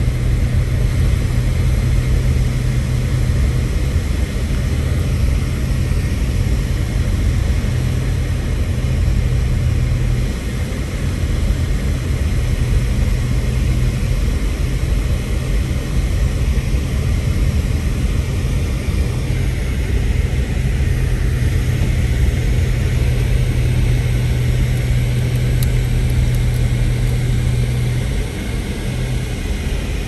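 Car cabin noise while driving on a snow-covered road: a steady low hum of engine and tyres that eases near the end.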